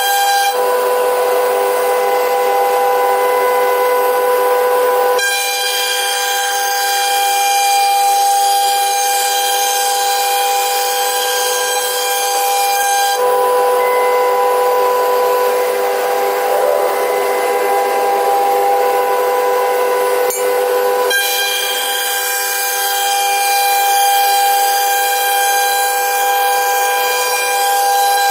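CNC router spindle running at high speed with a steady multi-tone whine, over the hiss of the bit carving wood. The cutting noise changes character every eight seconds or so while the whine holds.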